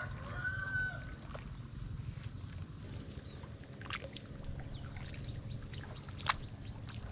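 A rooster's crow trails off in the first second. Then wet mud and water slosh and swish as a wooden leveling board is dragged through a flooded rice paddy, over a steady high whine and a few short sharp chirps.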